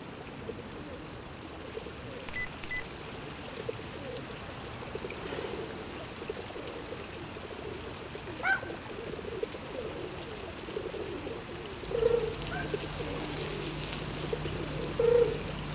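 Faint outdoor background, then, from about twelve seconds in, feral pigeons cooing several times over a low steady hum.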